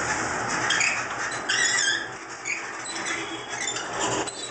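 Hand-operated level-crossing barrier mechanism squeaking irregularly as it is worked by hand to lower the crossing barriers.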